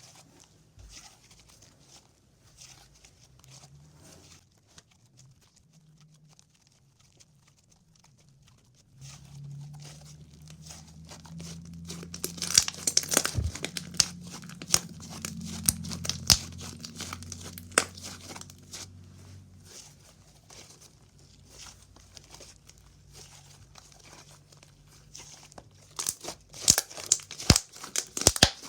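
Slime being squished and stretched by hand, making sticky crackling and popping clicks. They are sparse at first, thickest in the middle, and thick again near the end. A low hum runs underneath for about ten seconds in the middle.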